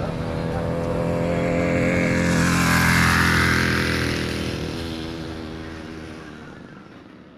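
Library recording of a moped engine passing by in a mixed ambience soundscape. It grows louder to a peak about three seconds in, then fades away, moved through the sound field by panning automation.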